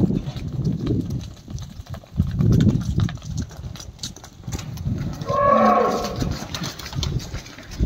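Dairy cows mooing, with one long moo about five seconds in.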